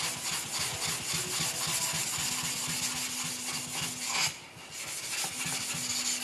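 A wet 2000-grit Shapton whetstone being flattened: rapid back-and-forth rubbing strokes that grind its surface down until the pencil marks are gone. There is a brief pause about four seconds in.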